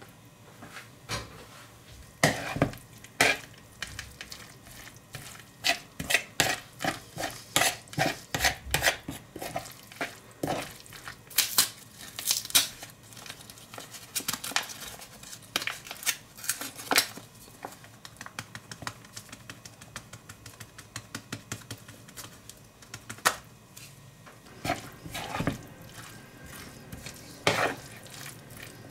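A spoon stirring and scraping through a chopped broccoli and cheese mixture in a plastic bowl: irregular runs of quick clicks and taps, with a quieter stretch in the middle.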